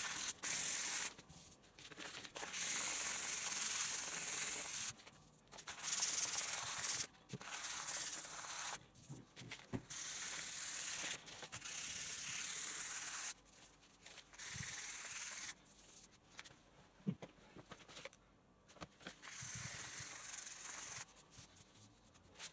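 Fine-grit sandpaper rubbed by hand back and forth along a Honda CB250's bare metal fork leg to polish it: a high scratchy hiss in runs of strokes lasting a second or two, with short pauses between.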